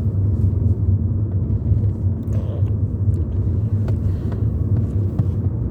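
Steady low drone of a car's engine and road noise, heard from inside the cabin while driving, with a few faint ticks over it.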